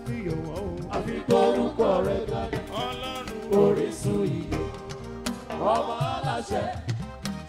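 Live band music: several voices singing over a drum kit, with a steady beat of drum hits.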